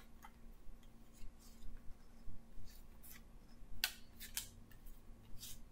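Picture flash cards being handled and sorted by hand: a string of faint, short card scrapes and clicks.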